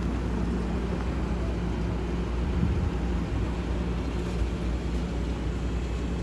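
Steady low rumble of a running engine with a constant hum.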